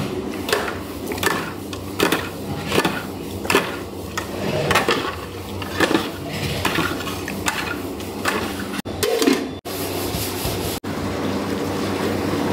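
A metal spoon scraping and knocking against the sides of an aluminium pot as thick curry is stirred, a clink roughly every three-quarters of a second. Near the end the clinking gives way to a steady machine-like rumble.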